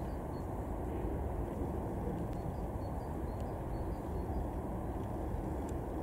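Steady low outdoor rumble with no birdsong, and a few faint ticks scattered through it.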